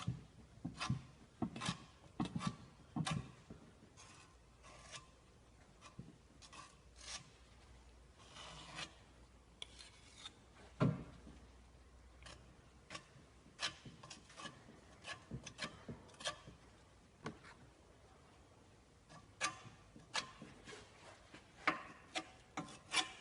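Irregular short scraping and rubbing strokes of a hand tool worked against a surface, some with a light knock.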